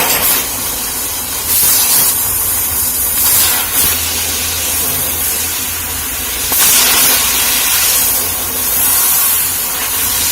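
Laser cutting machine at work: a loud, steady hiss of blowing air over a low hum, swelling in short, sharper surges every second or few.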